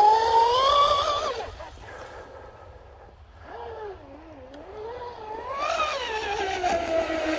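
Electric RC speedboat's motor whining at speed. The whine climbs in pitch to a peak about a second in, drops away and fades, then rises to another peak near six seconds and glides back down.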